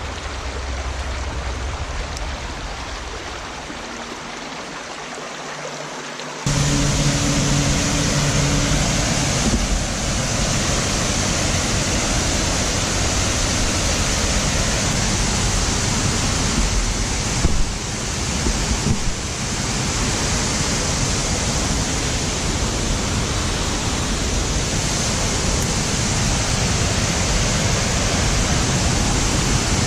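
Rushing water of a stream running high, a steady noise that jumps suddenly louder about six seconds in, with a couple of brief bumps just past the middle.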